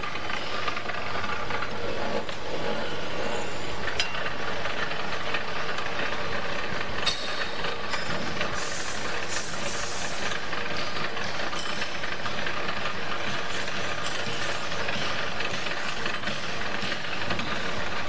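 Electric motor and gearbox of a small copper wire stripping machine running steadily while insulated wire is fed through its blades, with a sharp click about four seconds in and stretches of high hiss around the middle.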